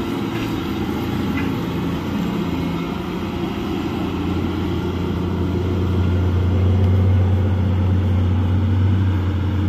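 Large mining dump truck's diesel engine running with a steady low drone, growing a little louder past the middle.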